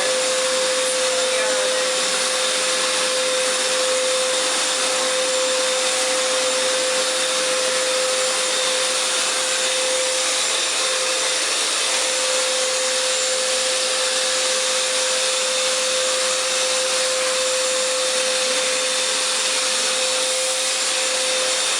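Hoover FloorMate wet floor cleaner running steadily in wash mode, its suction motor and spinning brushes giving an even whooshing hiss with a steady hum-like tone.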